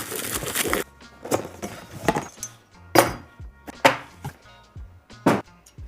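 Background music with a steady low beat, overlaid by a rush of noise in the first second and a series of sharp knocks or thwacks, the loudest three coming in the second half.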